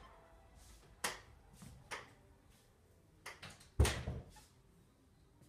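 A few scattered knocks and thuds, four in all, the loudest a heavy thud near the end.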